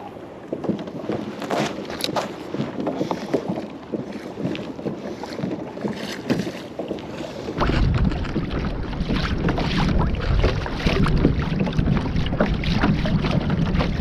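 Water and small knocks and clicks around a small boat, with wind on the microphone. About halfway through, a heavy wind rumble on the microphone sets in suddenly and stays.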